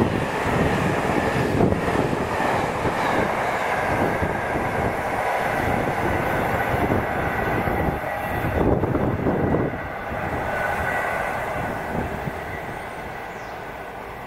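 A train running past on the line, with steady wheel and running noise that dies away gradually over the last few seconds as it moves off.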